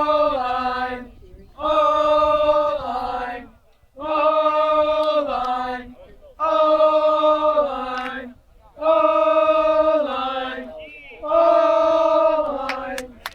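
Voices chanting a short phrase over and over, about every two and a half seconds, each phrase held on one pitch and stepping down at the end.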